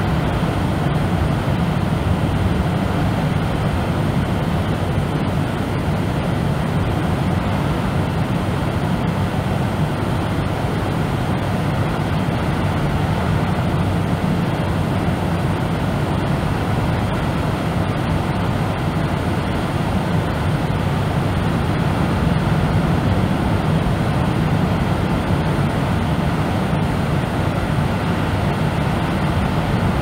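Steady deep brown noise: an even, bass-heavy rumble with no rise and fall and no separate events.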